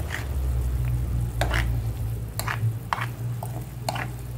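A white plastic spatula stirring thick sambal in a non-stick pan, scraping the pan in short strokes about one or two a second, over a steady low hum.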